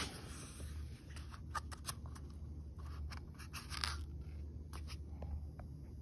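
Handling noise from a removed car speaker being held and set down on a lap: scattered clicks, taps and rustles, with a flurry of sharper clicks around two seconds in and again near four seconds, over a low steady hum.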